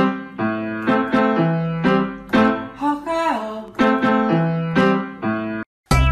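Background music: a bouncy piano-like keyboard tune in a steady beat. It cuts off abruptly near the end, and a different, busier music track starts after a brief gap.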